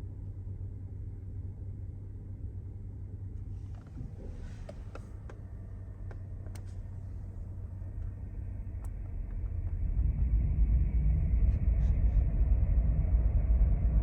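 Toyota Land Cruiser 300 running, with a steady low hum that swells into a much louder low rumble about eight to ten seconds in. A few faint clicks come between about four and seven seconds in.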